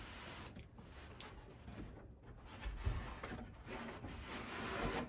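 Wooden bed frame being slid forward across a pickup truck bed: soft scraping and rubbing with a few light knocks and a dull thump about halfway through.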